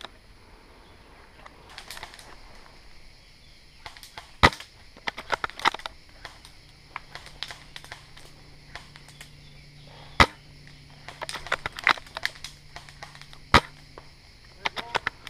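Tokyo Marui VSR-10 G-Spec spring bolt-action airsoft sniper rifle firing three times, about 4, 10 and 13 seconds in. Each sharp crack is followed by a quick run of lighter clicks from the bolt being worked to cock the next shot.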